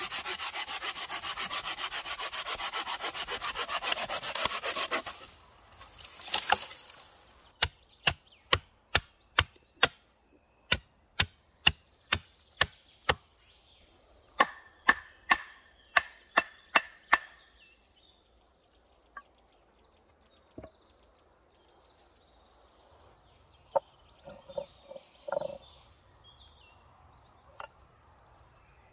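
A folding pruning saw cutting through a green branch in rapid strokes for about five seconds. This is followed by a run of about twenty sharp wooden knocks, roughly two a second, as stakes are driven into the ground.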